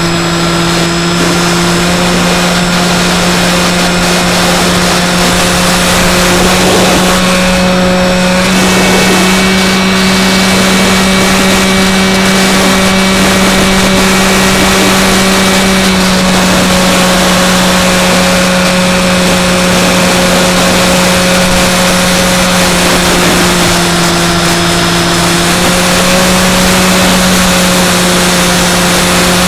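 Electric motor and propeller of a Skywalker X5 flying wing, heard from a camera on board, running with a steady drone under rushing wind. Its pitch steps slightly down and back up a few times as the throttle changes.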